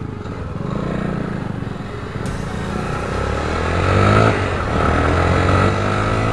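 Motorcycle engine running while riding, heard from the rider's seat, with the engine pitch rising as it accelerates about halfway through.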